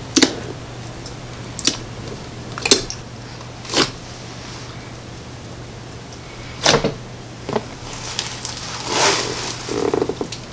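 Thick, stiff snow slime handled in a plastic tub: a series of sharp pops at irregular intervals as it is pressed and squeezed, then a longer crackling near the end as the slime is pulled up and stretched. A steady low hum runs underneath.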